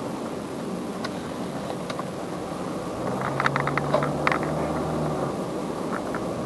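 Car running noise heard from inside the car as it drives slowly, a steady hiss with a low engine hum that comes up for a couple of seconds past the middle. A quick run of sharp clicks sounds around the middle.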